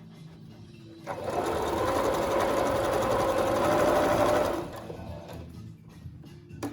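Electric sewing machine running at a fast, even stitch for about three and a half seconds, starting about a second in, then stopping.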